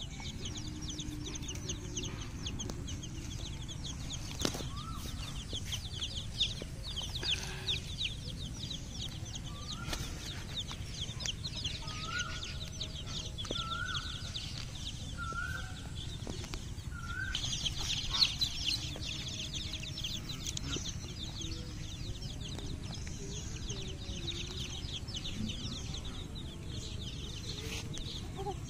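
A flock of baby chicks peeping nonstop, many quick high cheeps overlapping, busiest about two-thirds of the way through.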